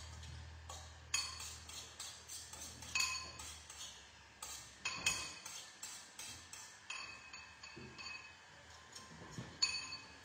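Eggs being beaten with a utensil in a bowl: repeated irregular clinks of metal striking the bowl, each with a short ringing tone.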